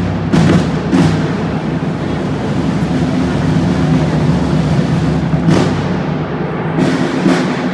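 Parade drums of the flag-wavers' drum corps playing a continuous roll, with a few loud accented strokes, about one at half a second and one at a second in, then several in the second half.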